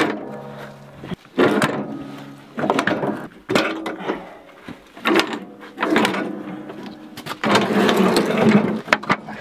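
The rusty steel cutting deck of a riding lawn mower clanking and ringing as it is worked loose and pulled out from under the mower: a series of metal clanks, about one a second, each ringing briefly, with a longer scraping clatter near the end.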